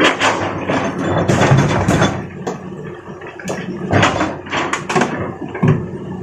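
Excavator working with its diesel engine running steadily under loud clanks and clatter of rock striking the steel bucket and truck bed, in several bursts.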